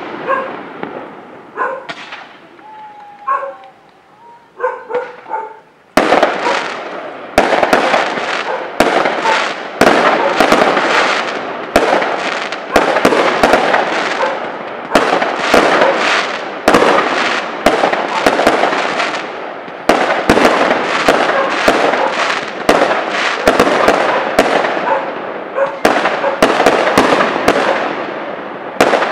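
Fireworks display: aerial shells bursting. One loud bang at the start, then from about six seconds in a rapid, continuous string of bangs and crackles, each trailing off in echo.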